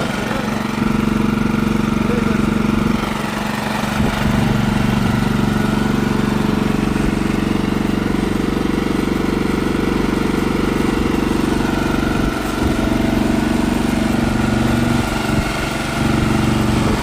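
Gardenpro Snowline snowblower's engine running steadily with the front auger engaged and turning, the sound dipping briefly a few times.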